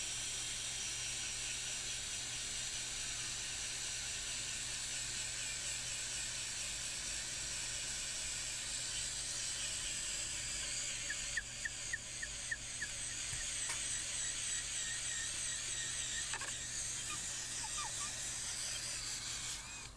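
Electric drill with a 16 mm bit boring diagonally down through a timber fence post, running with a steady high whine that stops just before the end.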